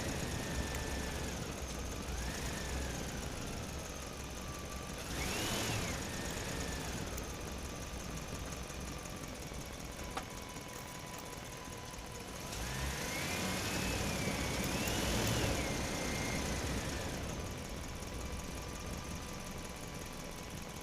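Small electric motor of a toy crane whining, its pitch rising and falling in several swells as it works, loudest in a long rise and fall about two thirds of the way through.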